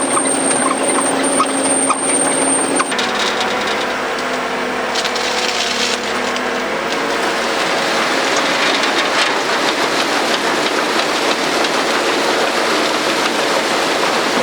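John Deere 6140R tractor and Dewulf potato harvester working: a steady engine drone under a busy mechanical rattle. The sound changes abruptly about three seconds in.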